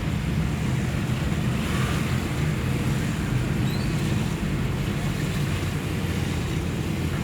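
Steady rushing wash of heavy rain and running flood water over a low, constant traffic rumble.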